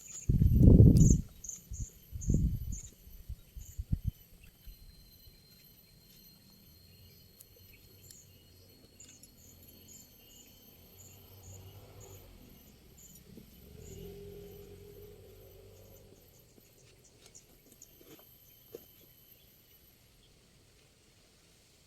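Insects chirping: a steady, very high trill with rows of short, quick high chirps over it. Loud low rumbling thumps, like handling or wind on the microphone, come in the first four seconds.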